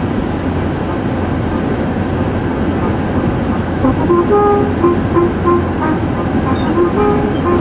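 Steady road noise heard from inside a van's cabin while it drives on a wet highway: tyre hiss on the wet surface over a low engine rumble. About halfway in, a few faint short tones at steady pitches come and go over the noise.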